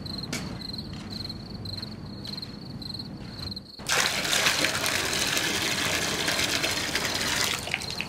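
Crickets chirping steadily; about four seconds in, a metal bucket of water is tipped out onto the ground, a loud splashing gush that lasts about four seconds and then stops.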